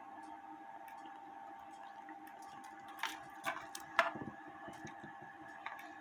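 A few irregular metallic clicks and taps from handling and adjusting the trip arms of an antique cuckoo clock movement, clustered about halfway through, over a faint steady hum.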